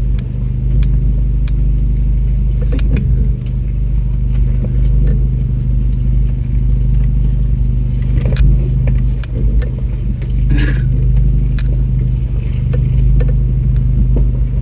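Off-road vehicle's engine running steadily at low speed while crawling over rough trail, with scattered sharp knocks and rattles from the body and loose items, and a brief scraping rush about ten and a half seconds in.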